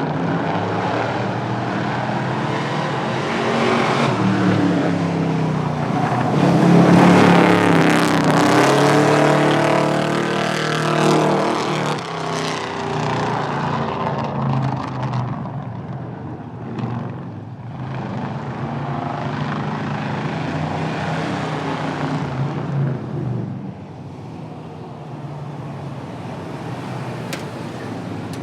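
Car engine at full throttle in a drag run, accelerating down the track. It is loudest about seven to ten seconds in as it passes, then fades into the distance.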